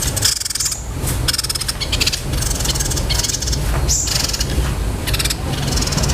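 Small songbird singing shrill, rapid rolling trills in repeated phrases, a roll the uploader likens to fighting house sparrows. A steady low hum runs underneath.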